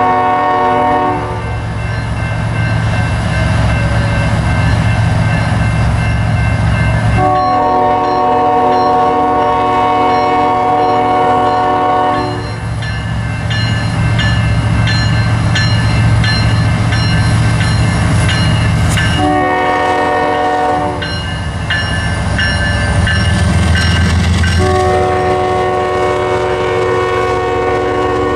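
Union Pacific diesel freight locomotive sounding its air horn in a chord: a blast that ends about a second in, a long blast, a short one, and another long one starting near the end. This is the long-long-short-long pattern blown for a grade crossing. Between the blasts the locomotives' diesel engines rumble and the wheels clatter on the rails as the train passes.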